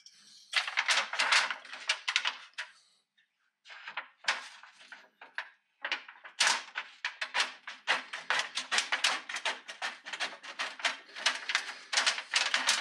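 Thin stainless steel foil crackling and rattling as it is unrolled and handled, in dense runs of sharp crinkles with short pauses about three and five and a half seconds in.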